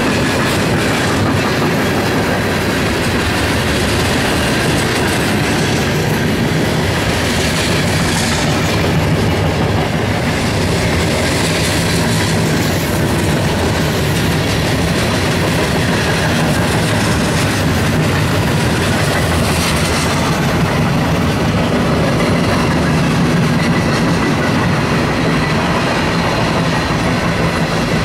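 Freight cars of a Norfolk Southern freight train rolling past at a steady speed: a continuous, loud noise of steel wheels running on the rails.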